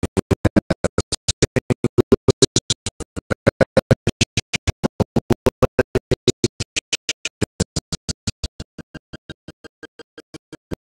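Background electronic music with a fast, even pulse of about five beats a second. It gets quieter about eight seconds in.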